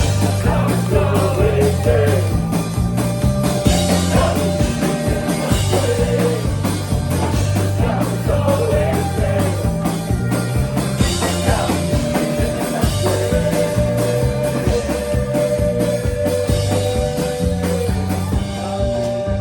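Live rock band with drums and bass playing a steady beat, with long held melody notes above it.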